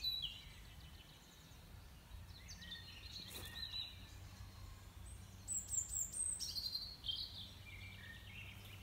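Small songbirds singing in short high chirps and trills, busiest a little past the middle, over a faint steady low background noise.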